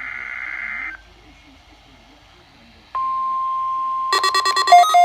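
An EAS/SAME digital data burst from a NOAA Weather Radio test, a harsh buzzing warble that stops about a second in. After a short gap a steady single alert tone starts, and about a second later fast electronic beeping joins it, slowing to separate beeps near the end.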